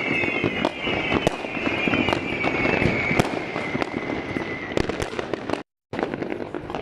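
Street fireworks and firecrackers going off all around: a dense run of sharp bangs over steady crackling, with a high whistle slowly falling in pitch through the first five seconds.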